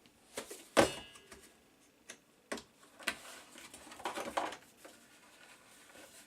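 Scattered clicks and knocks of small hard parts being handled, with one louder knock about a second in that rings briefly like metal.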